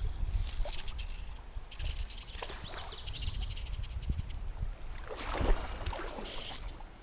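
River water sloshing and splashing around a wading angler's legs, with wind rumbling on the microphone; a louder rush of water comes about five seconds in.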